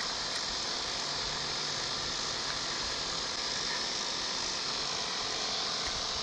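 Steady, even chorus of insects.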